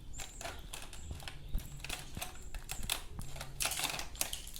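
Irregular clicks and taps of small plastic toy pieces, such as a toy doctor kit's syringe and tools, being handled and knocked together.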